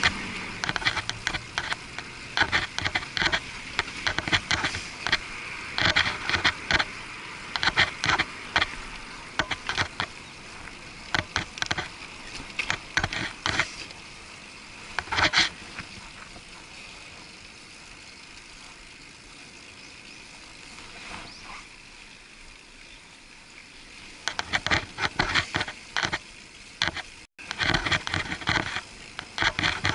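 Bicycle ride heard muffled through an action camera's waterproof housing: steady road noise with bursts of irregular rattling clicks as the bike and handlebar-mounted camera jolt over the pavement. The clicks die down for a smoother stretch in the middle and return near the end, where the sound cuts out for a split second.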